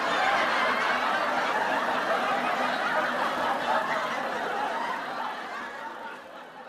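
Laughter of many people at once, chuckling and snickering together like an audience laugh track, fading out near the end.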